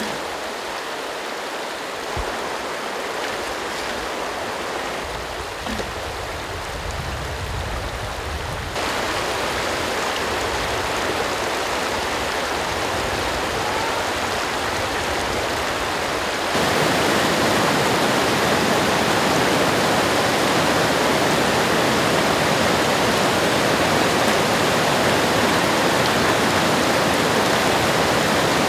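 River rapids rushing over rocks: a steady hiss of churning water that gets abruptly louder in two steps, about nine and sixteen seconds in.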